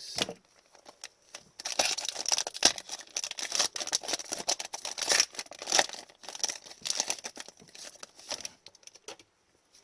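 A trading card pack's wrapper crinkling and tearing open, with cards rustling as they are handled. It is a dense run of rapid crackles that starts about a second and a half in and stops near the end.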